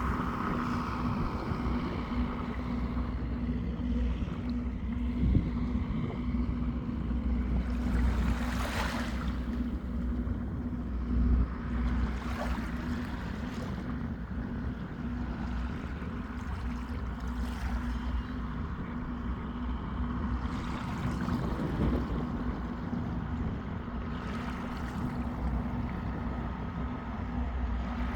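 Sea waves washing onto the shore, with a few larger swells, and wind rumbling on the microphone, under a steady low hum.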